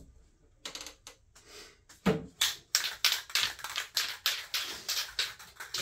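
Aerosol spray can of clear coat being shaken, its mixing ball rattling about three times a second from about two seconds in, after a few soft knocks.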